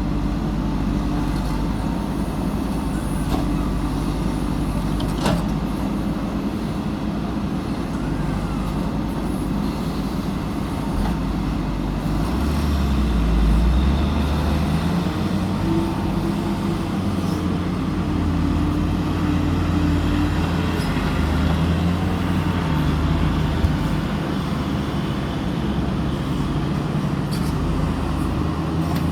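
Backhoe loader's diesel engine running, revving up under load about twelve seconds in and shifting pitch as the machine works. Two brief sharp knocks stand out, about five seconds in and near the end.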